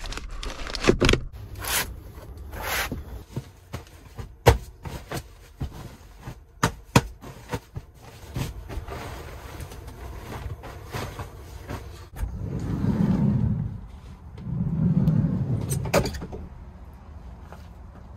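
Quick clicks and knocks as pleated blinds are fitted into the frame over a van's cab window. About two-thirds of the way through comes two long rushing swishes, a duvet being shaken out and spread over a bed.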